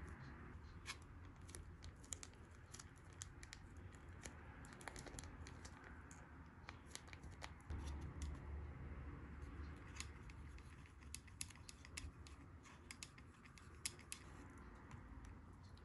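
Faint crinkling and tearing of a small plastic sauce packet, then many light clicks of chopsticks and a spoon against the bowl as the sauce is stirred into the ramen broth.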